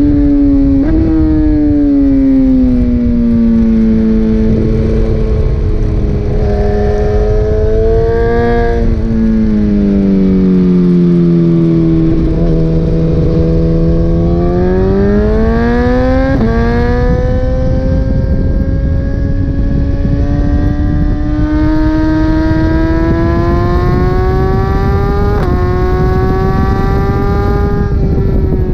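BMW S1000RR's inline-four engine at track speed. It is slowing, its pitch sinking, through the first dozen seconds, then accelerates hard out of a corner with upshifts about 16 seconds in and again a few seconds before the end, the note dropping at each shift and climbing again. Steady wind noise runs underneath.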